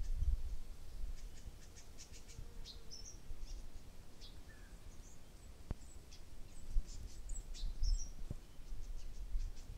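Scattered high, short chirps and tweets of small birds over a low background rumble, with two soft clicks in the second half.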